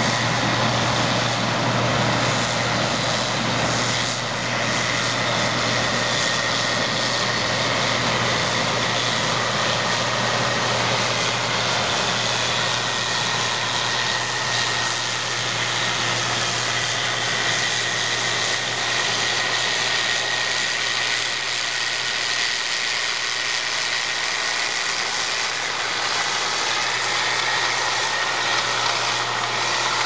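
Case IH combine harvesting corn, its diesel engine and threshing machinery running steadily as it drives past, with a low drone, a steady high whine and a dense rushing noise.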